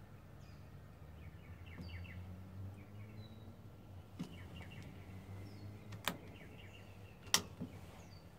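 Quiet background with small birds chirping faintly over a low hum. A few sharp clicks, the loudest about six and seven seconds in, come from wiring and test leads being handled at the test board.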